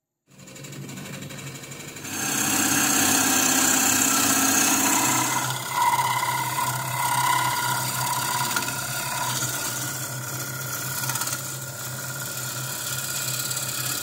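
Wood lathe starting up and running with a steady hum. From about two seconds in, a turning gouge cuts into the spinning wooden blank, a continuous loud cutting noise as shavings are peeled off.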